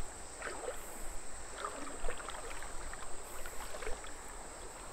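Feet wading and sloshing through shallow creek water, short irregular splashes, over a steady high insect drone.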